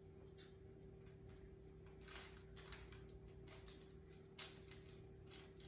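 Near silence: faint rustling and light ticks of plastic wrap being handled from about two seconds in, over a steady low hum.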